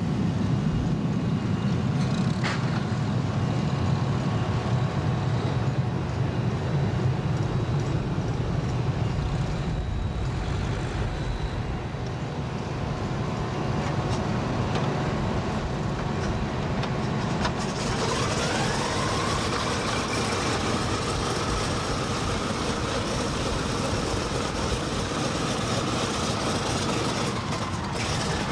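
Pratt & Whitney R-2800 radial engine of a Douglas DC-6 being started: a low rumble at first, then about two-thirds of the way in the engine catches with a rising whine that settles into a steady running note, smoke blowing from the exhaust.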